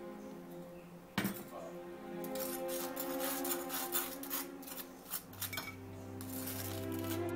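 A table knife scraping and clicking against toast and a plastic plate, spreading ketchup in irregular strokes, after a single sharp knock about a second in as the ketchup squeeze bottle is set down on the wooden counter. Soft background music plays throughout.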